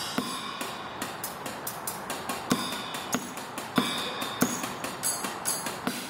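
Free-form drumming on a small percussion kit built onto a hand truck: uneven, sharp stick hits on drums and blocks, with a few louder strokes about midway, over a faint held tone.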